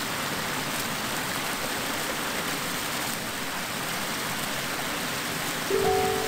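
Water rushing steadily over the lip of a low concrete weir, an even splashing hiss. Near the end a few held musical tones come in over it.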